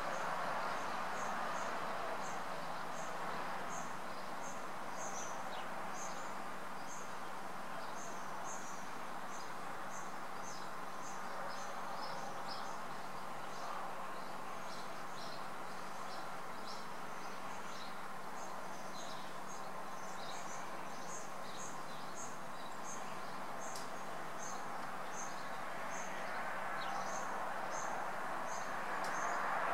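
Orchard air-blast sprayer running at a distance: a steady rushing hiss with a low hum under it, a little louder at the start and again near the end. Short high chirps repeat about twice a second over it.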